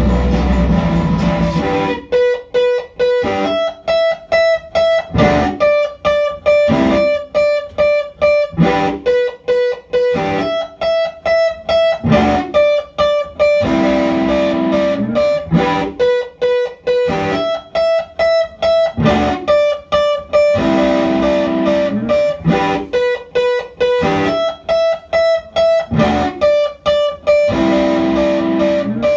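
Live electric guitar music: after a held low drone, a riff of short, clipped notes starts about two seconds in and repeats over and over, choppy and evenly broken by short gaps, until it cuts off at the end.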